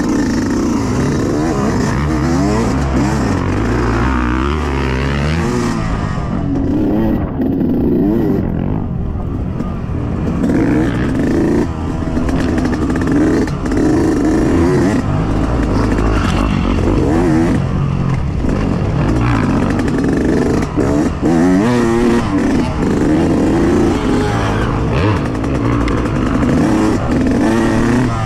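Yamaha YZ125X two-stroke dirt bike engine ridden hard, its pitch rising and falling over and over as the throttle is opened and closed.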